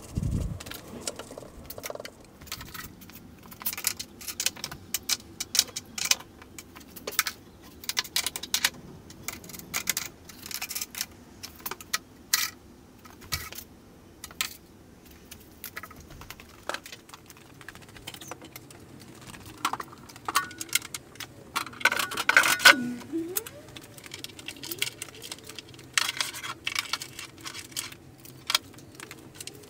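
A busy, irregular run of light metallic clicks and clinks, as of metal tools and hardware being handled, with a brief wavering tone about three-quarters of the way through.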